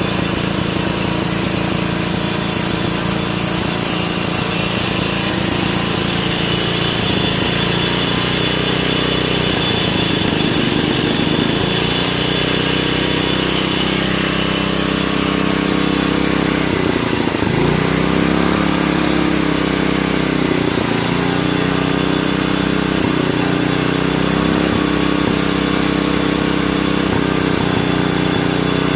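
A 10 hp Briggs & Stratton lawn tractor engine running on a newly fitted one-piece Flo-Jet carburetor, just after starting. Its speed shifts and wavers in the second half, with a sharp dip about two-thirds of the way through before it picks back up.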